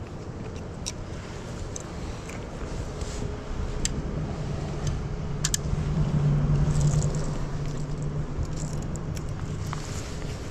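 A passing engine: a low, steady hum that swells from about three and a half seconds in, is loudest around six to seven seconds, and fades near the end. Scattered light clicks sit over it.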